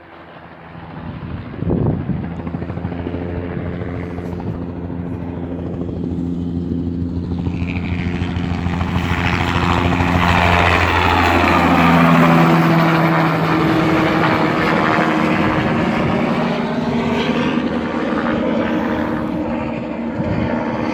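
Helicopter flying past low, its rotor and engine growing louder and then dropping in pitch about halfway through as it passes.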